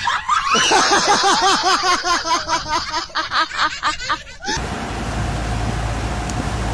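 A person laughing hard in a fast run of short, high, pitched bursts, about five a second. It stops suddenly about four and a half seconds in, giving way to a steady rumble with a faint constant hum.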